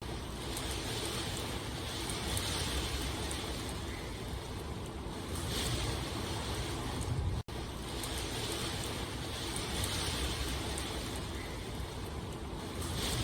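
Steady rain, with a dense hiss that swells gently every few seconds. The sound cuts out for an instant about halfway through.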